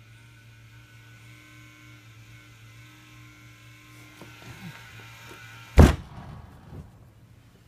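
Small electric fan running with a steady hum, then a loud click about six seconds in, after which the fan's higher whir dies away, as it is switched off. Soft rustling of bedding around the click.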